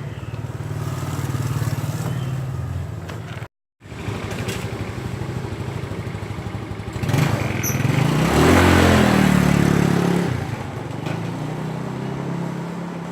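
Motorcycle engine running steadily. About seven seconds in, a vehicle passes close by, louder for a few seconds with its pitch rising and falling. The sound cuts out briefly a little before four seconds in.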